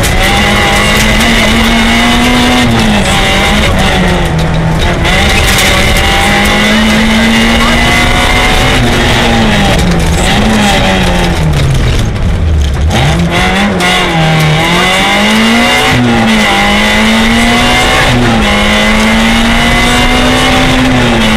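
Peugeot 106 Group N rally car's engine running hard, heard from inside the cabin. The revs rise and fall repeatedly through gear changes, drop low about twelve seconds in, then climb again.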